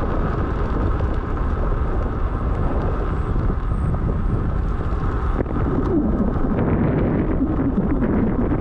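Steady wind rush on the microphone with rolling rumble from an electric unicycle riding over a trail, with a few small clicks and a wavering hum in the last few seconds.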